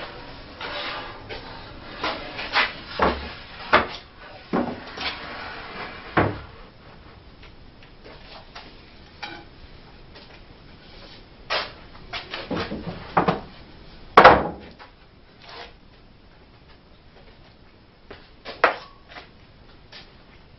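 Wooden knocks and bumps of 2x4 lumber being handled and set down on a wooden workbench, a scattered series of short knocks with the loudest one about two-thirds through.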